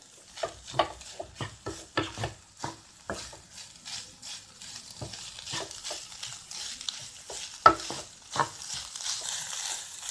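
Wooden spatula stirring and scraping chopped banana flower and coconut around a non-stick frying pan, with irregular knocks against the pan and one sharper knock near the end. A light sizzle of the mixture frying open on full flame, being dried out, grows in the second half.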